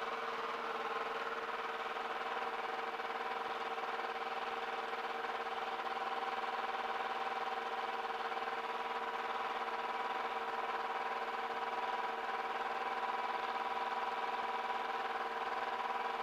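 Steady drone of a light aircraft's piston engine running, heard through the intercom audio feed, with several steady hum tones laid over it.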